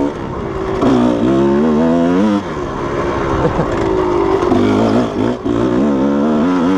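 Kawasaki KDX220's two-stroke single-cylinder engine under way, revving up and dropping back several times: it climbs in pitch from about a second in to two and a half seconds, falls off, then picks up again near the end.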